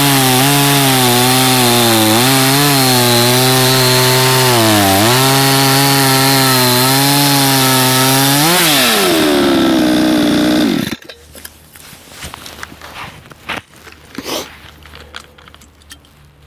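Two-stroke petrol chainsaw, an AL-FA ALGC49 (a Chinese Komatsu Zenoah clone), cutting spruce under heavy load at the limit of its power. Its engine speed wavers and dips as it stumbles, which is put down to the fuel running low. About eight and a half seconds in the revs climb sharply, then fall away, and the engine stops suddenly at about eleven seconds, leaving only faint clicks and handling noises.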